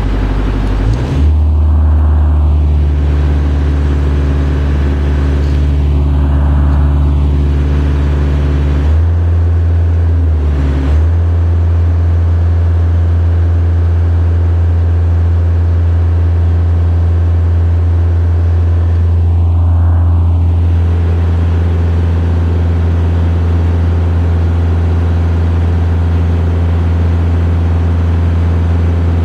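Engine of a 2002 JLG 660SJ 4x4 telescopic boom lift running steadily while the raised boom and platform are worked. Its speed steps up about a second in and shifts again between about nine and eleven seconds in.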